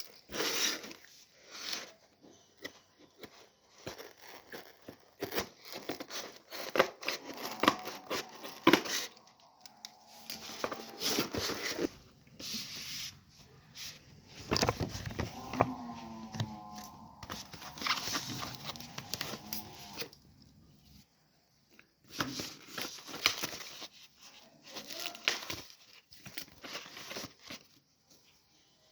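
Packaging of a puzzle cube being torn open and crinkled by hand: irregular tearing and crinkling rasps with sharp handling clicks, pausing briefly about two-thirds of the way through.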